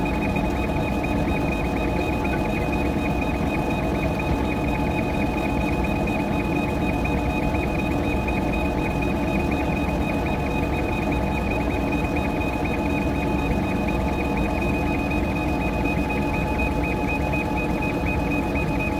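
CO2 laser engraver running as it engraves a metal tumbler on a rotary attachment: a steady high whine with fast, even ticking, over a steady low hum.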